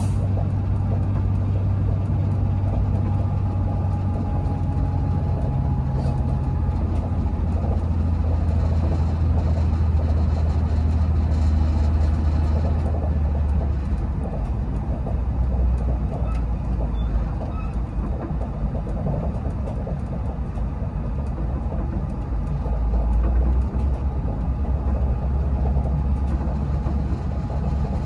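Train running at speed, heard from inside the passenger car: a steady rumble of wheels on track under a low engine drone that steps down in pitch a couple of times.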